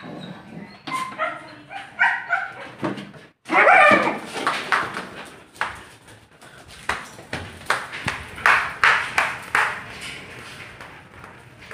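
Huskies yipping and whining as the female resists the male's mounting, then a run of short, sharp barks and yelps.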